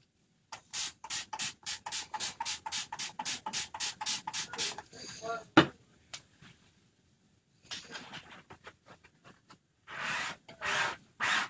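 Fast rhythmic scrubbing as paste is cleaned off a printing transfer stencil, about five strokes a second, then a single sharp knock. Slower, heavier rubbing strokes follow near the end.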